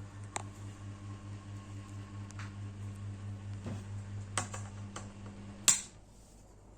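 Vega FC-06-70 mini ceiling fan running with a steady, pulsing motor hum and scattered ticks, on a fan the owner calls wobbly and noisy. Near the end a loud click sounds and the hum cuts off suddenly, as if the fan is switched off.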